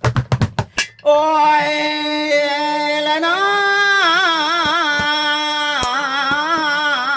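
A man sings one long held note into a close microphone with no accompaniment. The note is steady at first and wavers with vibrato from about halfway. It opens with a rapid run of knocks in the first second.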